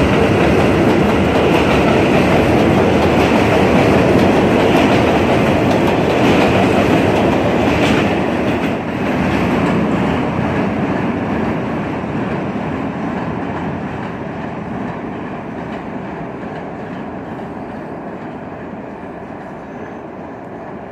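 R160 subway train on an elevated steel structure pulling away. Its wheel and rail noise is loud at first, then fades steadily from about eight seconds in as the train draws off.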